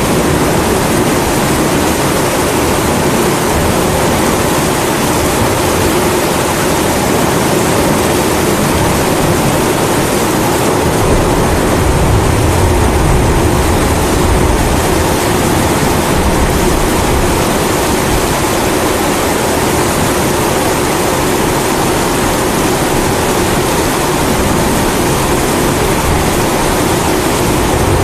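Kerosene pressure stove (primus) burner running with a steady, even hiss, mixed with falling rain. A low rumble swells for a few seconds near the middle, like distant thunder.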